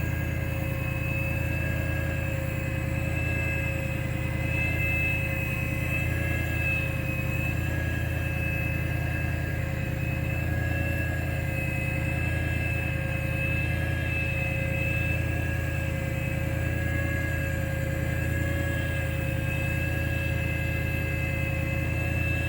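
A machine running steadily: a low rumble with several thin, high whining tones that waver slightly in pitch, unchanged throughout.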